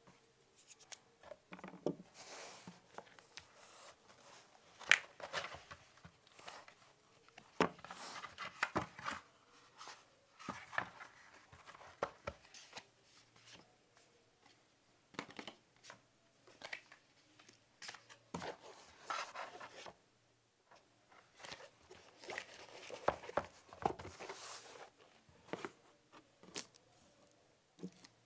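Unboxing handling noise: paper leaflets rustling and small plastic parts and packaging clicking and tapping on a desk, in irregular bursts with a sharp click about five seconds in.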